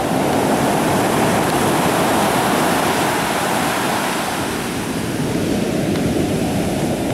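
Pacific Ocean surf: a steady rush of breaking waves on the shore, easing slightly about two-thirds of the way through.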